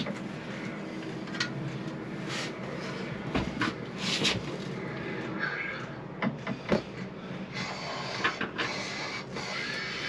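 Metal hand tools clicking and knocking against engine parts at irregular intervals, over a steady background noise.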